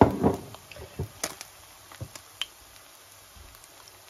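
Syrniki frying in shallow oil in a pan: scattered sharp pops and crackles of spitting oil over a quiet sizzle, after a short, louder noise right at the start.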